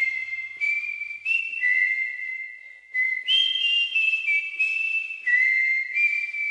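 A string of whistled notes: clear, steady tones that step up and down in pitch, each held from a fraction of a second to about a second, with a short pause about three seconds in.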